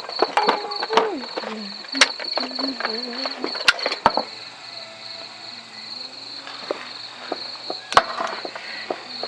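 Crickets chirping in a steady, rapid, high-pitched trill, with several sharp clicks and knocks over it.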